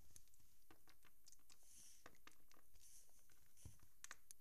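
Near silence with faint scattered clicks and taps of small plastic toys being handled.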